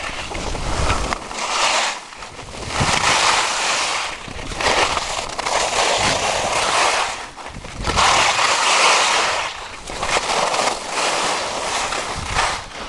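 Skis sliding and scraping over packed snow through a run of turns, a rushing hiss that swells and fades every second or two. Wind rumbles on the microphone now and then.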